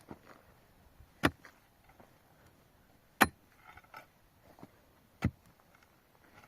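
Three sharp, heavy strikes of a hand tool, about two seconds apart, with faint scraping between them.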